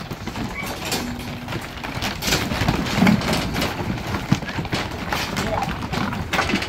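Sheep hooves clattering and knocking on a slatted timber shed floor as the mob shuffles and moves, with irregular, uneven knocks throughout.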